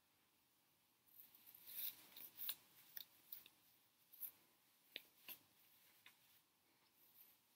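Faint rustling and brushing of wig hair and cap as a wig is pulled down over the head by hand, with a cluster of short scratchy rustles in the first few seconds and a few soft ticks later.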